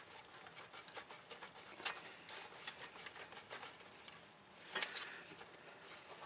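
Hands working a plastic 3-pin wiring connector and harness, trying to pull it apart: a run of small plastic clicks and rattles, busiest about two seconds in and again near five seconds. The connector is stuck and won't come apart by hand.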